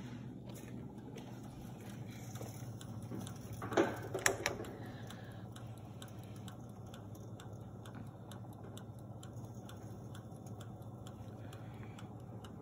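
Steady hum of a running kitchen appliance, with faint ticking throughout and a few sharp clatters about four seconds in.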